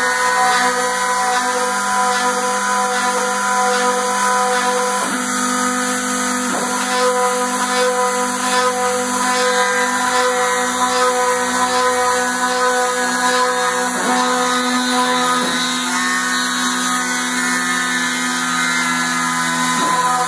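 Homemade CNC milling machine running with a steady, pitched whine that briefly dips in pitch about five times.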